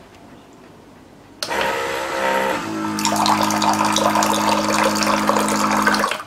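HongMan electric gallon-water dispenser pump switching on about a second and a half in with a steady hum. Water from its spout splashes into a glass jug, and both stop suddenly shortly before the end.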